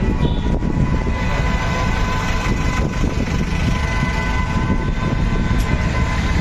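Busy street traffic heard on the move, with heavy rumble and a steady high whine held through most of it that fades near the end.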